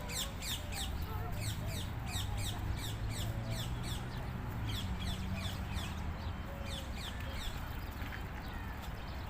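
A flock of small birds chirping and twittering, many short high calls overlapping several times a second, over a steady low rumble.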